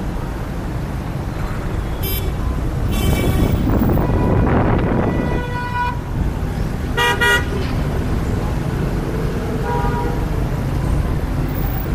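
Road traffic with vehicle horns honking again and again: short toots about two and three seconds in, a longer held horn from about four to six seconds in, a quick double toot about seven seconds in and a fainter one near ten seconds, over a steady low rumble of engines.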